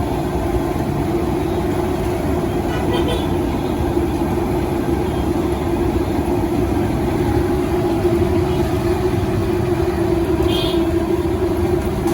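Steady roadside traffic noise with a low hum, and two brief vehicle horn toots, one about three seconds in and one near the end.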